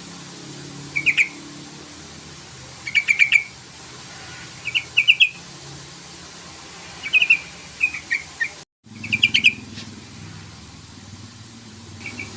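Yellow-vented bulbul (trucukan) calling in short bursts of quick bubbling, chattering notes, about six phrases a second or two apart, over a faint low hum; the sound drops out completely for an instant just before the second-to-last burst.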